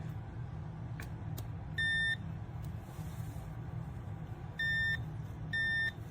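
Continuity beeper of a TESMEN TM-510 digital multimeter giving three short high beeps, one about two seconds in and two near the end, as the test leads make contact. A faint click or two comes about a second in, over a steady low hum.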